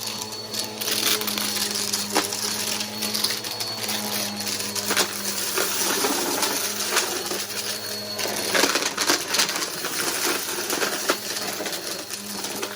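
Bissell PowerForce Helix upright vacuum running with a steady motor hum and a thin high whine, with frequent sharp clicks and crackles of debris being sucked up.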